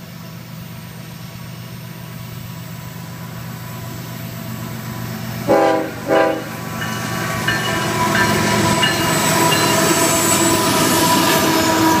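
Loaded coal train led by a CSX GE ES44AC diesel locomotive approaching, its engine drone building. A little past halfway the locomotive sounds two short horn blasts about half a second apart. Then the lead units pass close and the engine rumble and wheels on rail grow loud.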